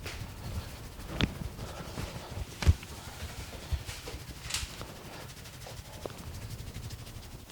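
Hands striking a person's head and neck during an Indian head massage: a few separate sharp slaps and smacks, the loudest a little under three seconds in, over a low steady rumble.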